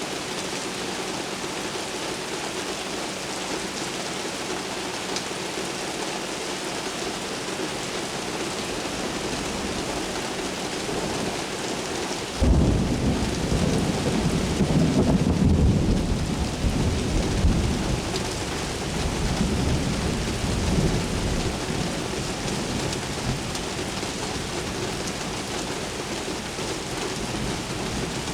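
Steady heavy rain, then about twelve seconds in a sudden loud thunderclap that rumbles low for several seconds and slowly dies away under the rain.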